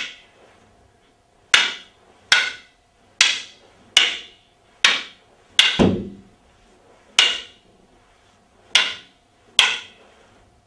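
Wooden martial-arts practice sticks clacking together, about eleven sharp strikes, each with a short ring, coming irregularly about once a second. One heavier, deeper knock near the middle.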